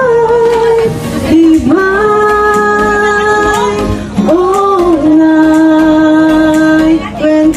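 A woman singing a slow song in long held notes, with guitar accompaniment.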